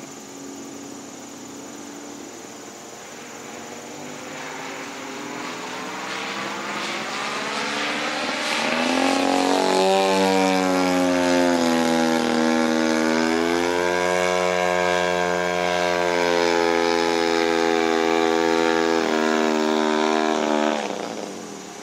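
Radio-controlled aerobatic model airplane flying overhead, its propeller engine growing louder as it comes closer, then running loud and steady with its pitch shifting as it manoeuvres. The sound drops off sharply about a second before the end.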